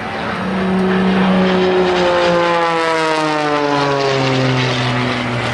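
Propeller aircraft flying past, its engine and propeller note dropping steadily in pitch as it passes.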